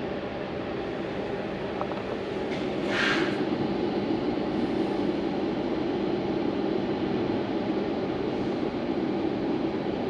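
Electric fan running steadily with a low whir, with a short hiss about three seconds in, after which the noise is a little louder.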